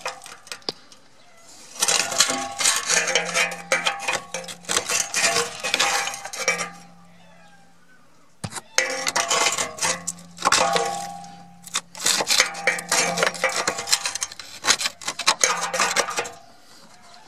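Screwdriver tip scraping, clinking and picking at rusted-through sheet metal on a Lada Niva's underbody by the rear shock absorber mount, in two long bouts of rapid scratching with a pause of a couple of seconds between them. The metal is being probed to show how far the rot has eaten through.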